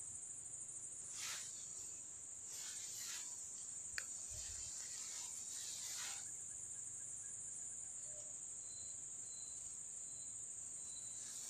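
Steady, high-pitched insect chorus from the surrounding grass, with a few brief rustles and a single sharp click about four seconds in.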